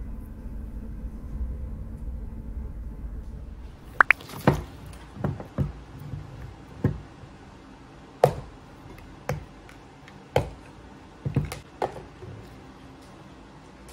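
A low steady rumble that stops about four seconds in, followed by about a dozen irregular sharp knocks and taps in a small room.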